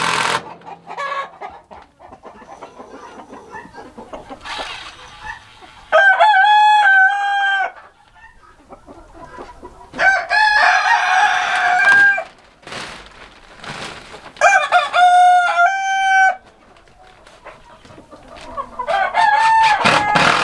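Rooster crowing four times, roughly every four seconds, each crow a long pitched call of about two seconds.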